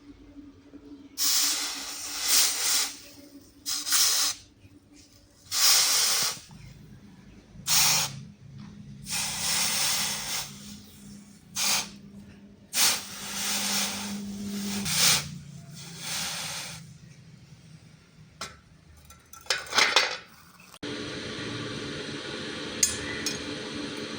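Red-hot steel knife blades being quenched for hardening, giving a series of separate hissing bursts about a second or two long as the hot metal is dipped again and again. Near the end the hissing gives way to a steady low background hum with a couple of faint ticks.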